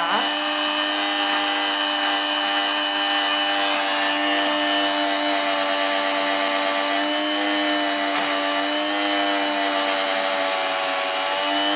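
Electric frappé drink mixer running steadily, its spindle whipping instant coffee, sugar and milk into foam in the cup: a loud, constant motor whine whose pitch sags slightly past the middle.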